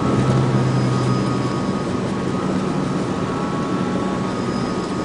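Japanese mini truck driving at steady speed: engine drone and tyre and road noise. A faint high whine runs over it, and one low tone of the engine drone fades out about a second and a half in.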